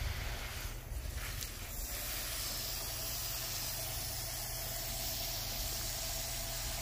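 Pistol-grip garden hose spray nozzle spraying a fine fan of water over plants: a steady hiss of spray.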